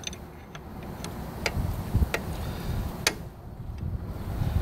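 A 9/16 combination wrench clicking against the friction-wheel bolt and steel drive frame of an Ariens ST824 snowblower as it is fitted on: several sharp metal ticks, the loudest about three seconds in, over a low rumble.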